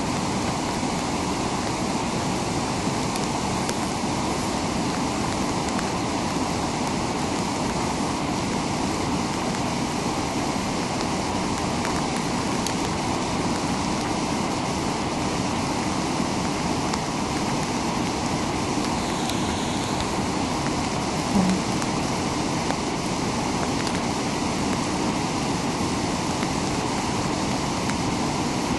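Fast stream rapids rushing steadily, with one short low thump about two-thirds of the way through.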